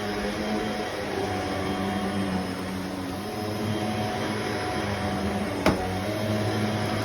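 Vacuum cleaner running steadily, a motor hum under the rush of air, with one sharp click a little over five seconds in.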